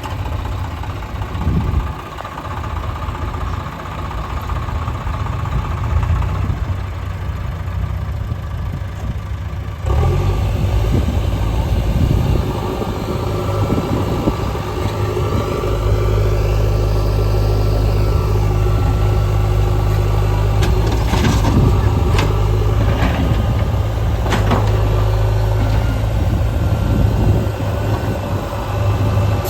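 Heavy diesel engine of earthmoving machinery running steadily. It gets suddenly louder about ten seconds in and takes on a deeper rumble from about sixteen seconds. A few sharp knocks come a little past twenty seconds.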